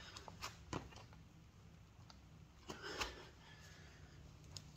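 Faint slaps and thuds of hands and feet hitting an exercise mat during a burpee, several quick knocks in the first second and a harder one about three seconds in, with a heavy breath around it.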